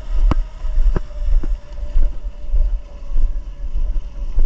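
Wind rumbling and buffeting on the microphone, with a few sharp pops. Under it is the faint, thin whine of the RC catamaran's twin 1900 kV brushless motors running far out on the water, its pitch sinking slowly.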